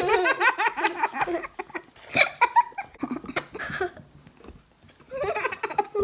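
Two girls laughing and giggling together, loudest at the start, dying down about four seconds in and picking up again near the end.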